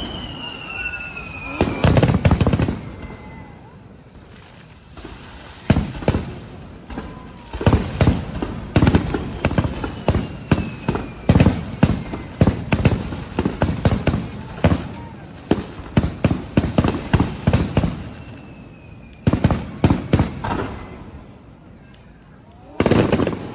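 Aerial fireworks shells bursting in a string of loud bangs, sparse at first and then coming in a rapid, dense run through the middle, with a few faint falling whistles among them.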